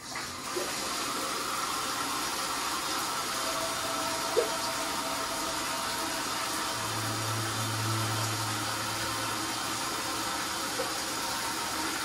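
Bathtub tap turned on and running, water pouring into the tub as it fills: a steady rushing that starts at once. A single hiccup cuts in about four seconds in, and a low hum joins for a couple of seconds after the middle.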